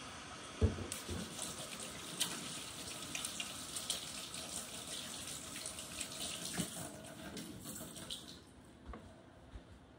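Kitchen tap running into a sink: a steady hiss of water with scattered small knocks and clatters, one sharp knock about half a second in. The water eases off about eight seconds in.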